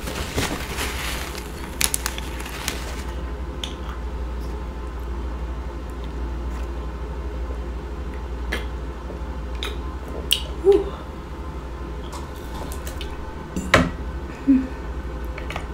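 Mukbang eating sounds: wet, squishy chewing and handling of buttery seafood, with a few sharp clicks at irregular moments, the loudest near the end, over a steady low hum.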